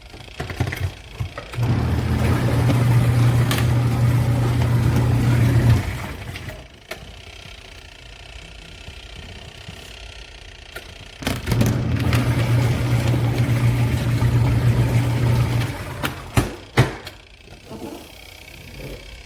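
BANGSON twin-tub portable washer's wash motor running in two spells of about four seconds, each a steady low hum, with a quiet pause between them: the start-stop agitation of a wash cycle. A few short knocks and clicks come around the pauses.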